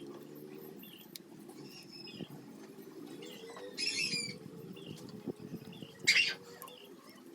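Birds calling, with two short, louder calls about four and six seconds in, and a faint short chirp repeating about once a second, over a faint low hum.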